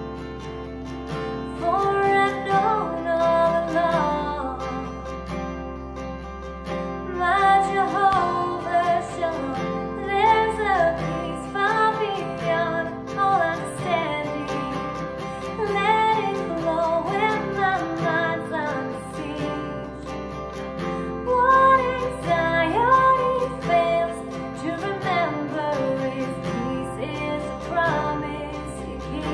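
A woman singing a worship song to a strummed acoustic guitar.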